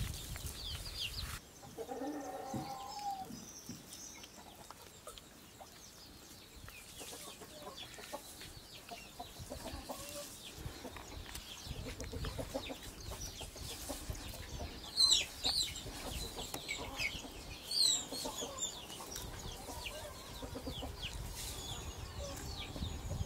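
Chickens clucking in the background. A pitched call comes a couple of seconds in, and two brief, sharp high-pitched calls a few seconds apart come about two-thirds of the way through; those two are the loudest sounds.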